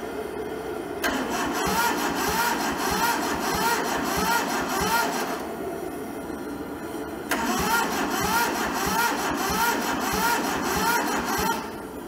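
Starter motor cranking the Toyota SDK4 skid steer's diesel engine in two bursts of about four seconds each, turning it over with a steady rhythmic beat but never firing: diesel has not yet reached the injectors. A blowtorch hisses steadily at the intake throughout.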